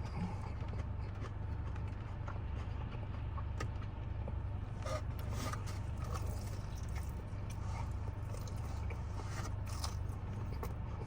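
A person biting into and chewing crispy fried chicken, with scattered short crunches and crackles. A steady low hum runs underneath.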